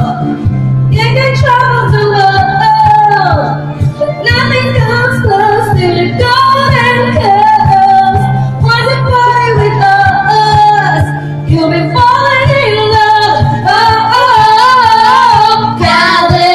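Woman singing into a microphone over a loud karaoke backing track with a steady beat.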